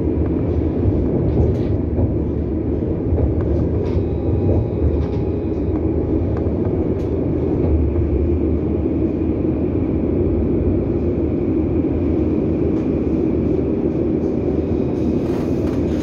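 Tram running on its rails, heard from inside the car: a steady low rumble of wheels and running gear with a faint thin whine above it, and a brief hiss of noise near the end.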